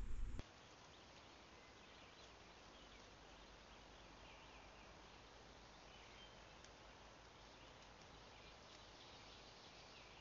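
Near silence: faint hiss with faint, scattered high-pitched chirps.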